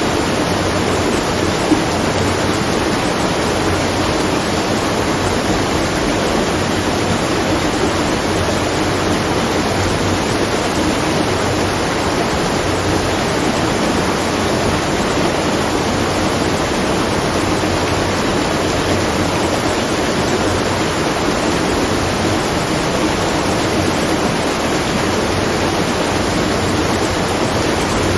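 Water rushing and splashing at a watermill, a steady, even rush.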